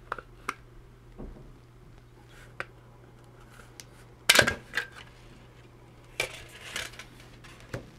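The plastic housing of a KAIWEETS KM601 digital multimeter being pried open by hand and its back cover lifted off: scattered clicks and a clatter of hard plastic. The loudest clatter comes about four seconds in, with more around six to seven seconds.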